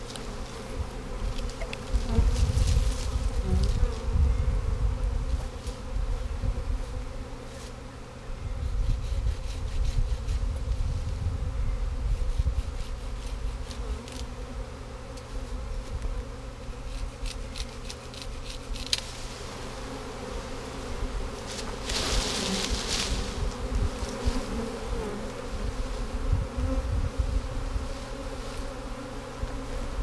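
A swarm of honey bees buzzing thickly around the microphone: a steady hum with individual bees flying past. Low rumbles come and go, and a short burst of noise sounds about two-thirds of the way in.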